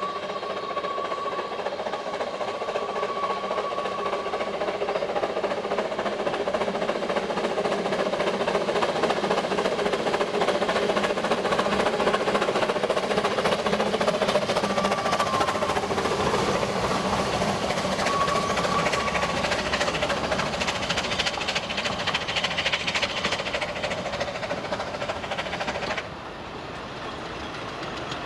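Narrow-gauge steam locomotive working a passenger train past at close range: fast steady chuffing with wheel and rod clatter, growing louder as it nears, with a thin high tone coming and going. Near the end the sound suddenly drops and changes.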